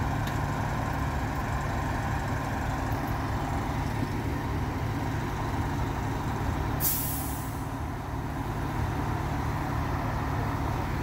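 Fire engine idling with a steady low rumble. About seven seconds in, a short sharp hiss of air from its air brakes.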